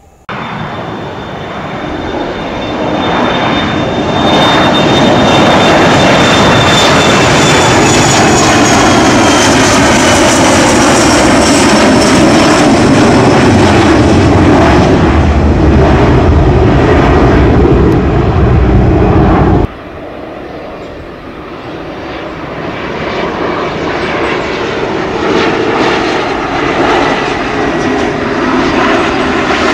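Twin-engine business jet at takeoff thrust: a loud jet roar with a high whine that comes in suddenly, builds over the first few seconds, then holds steady as the jet lifts off and climbs. About twenty seconds in it cuts abruptly to a quieter regional jet on approach, its engine sound growing louder toward the end.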